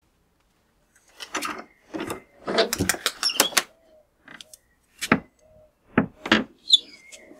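Wooden shed door being unlocked and opened: a run of sharp metallic clicks and rattles from the padlock and hasp, then a few single knocks and faint squeaks as the door swings open.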